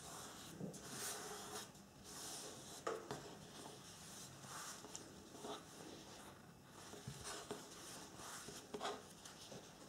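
Faint rustling and swishing of a paper napkin being folded, creased and slid by hand on a wooden tabletop, with a sharper tap about three seconds in and another near the end.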